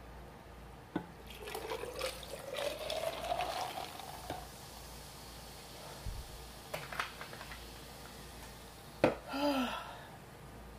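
Liquid poured into a glass container, the filling sound rising steadily in pitch over a couple of seconds as it fills. A few light clicks follow, then a sharp knock and a short voiced sound near the end.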